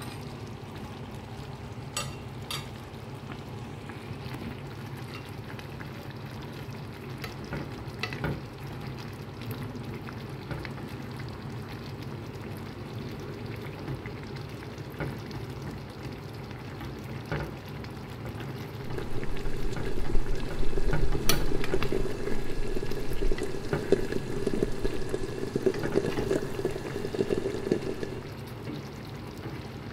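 Chicken cacciatore simmering and sizzling steadily in tomato sauce in a cast-iron skillet, with a few light clicks of a spoon on the pan. It gets louder for several seconds past the middle as sauce is spooned over the chicken.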